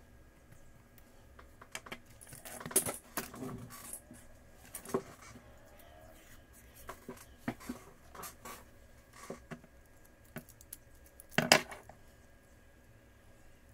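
Small tools and tablet parts being handled during a screen repair: scattered clicks, taps and short scrapes, the loudest about two seconds before the end.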